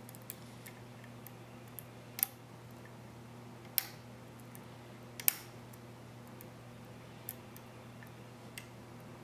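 Light, irregular metallic clicks of a lock pick working the security pins of a Master Pro Series 6270 puck padlock's six-pin core under tension, with three sharper clicks in the first half. The core is held in a false set.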